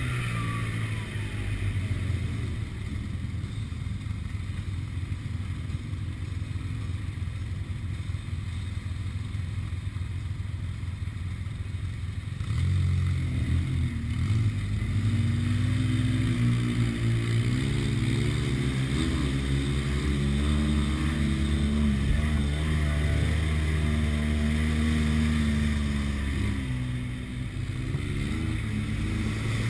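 Side-by-side UTV engine running under way on a rough trail, heard from the driver's seat. About twelve seconds in it gets louder and its pitch starts rising and falling as the throttle is worked.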